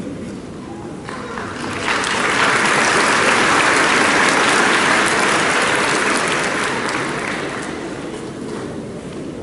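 Audience applauding: the clapping swells about a second in, holds for several seconds, then dies away.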